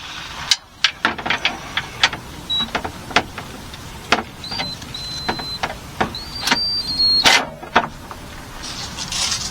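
Irregular sharp metallic clicks and clinks of a socket wrench working the oil drain plug loose on a Jeep Grand Cherokee oil pan, with a few brief, thin, high squeaks.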